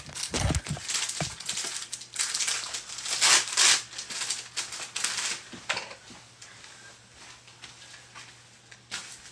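Low knocks as a phone is handled and set down, then the dry rustle of denim and a shirt being pulled and tugged as jeans are hitched up and adjusted at the waist, dying down after a few seconds.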